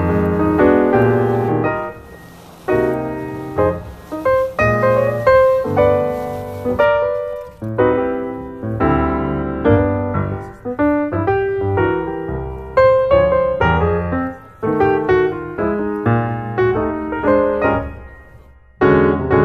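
Background piano music: struck notes in a steady rhythm over a low bass line, thinning out briefly about two seconds in and again near the end.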